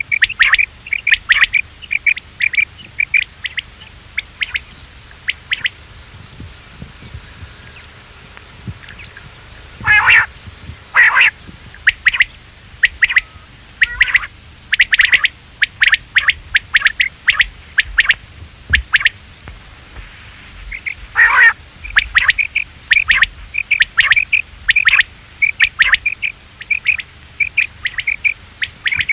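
Quail calls played as a hunting lure: runs of short, sharp, rapidly repeated notes, with a few louder, lower calls about ten, eleven and twenty-one seconds in.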